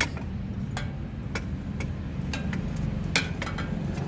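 Irregular light metallic clicks and taps, one or two a second, as the motorcycle's rear brake caliper bracket and disc are worked into line with the rear wheel. A steady low hum runs underneath.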